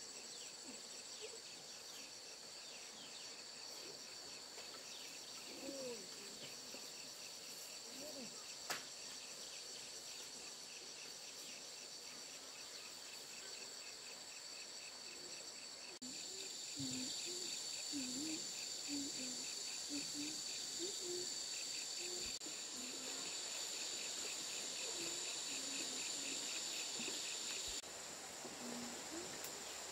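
Insects chirring in a steady, high-pitched, pulsing drone. About halfway through a second, louder chorus joins in, and it cuts off abruptly near the end. There is a single sharp click about a third of the way in.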